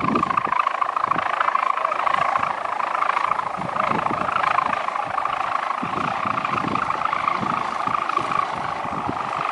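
Hummer on a pegon kite buzzing steadily in the wind: a fast-fluttering drone that sounds like a helicopter. Wind gusts rumble on the microphone underneath.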